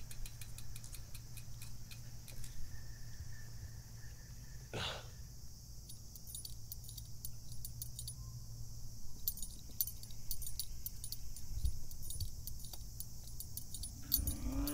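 Light, irregular metallic clicking and rattling of a bicycle's chain and gears being handled, growing busier in the second half, over a faint steady low hum. A single brief whoosh comes about five seconds in.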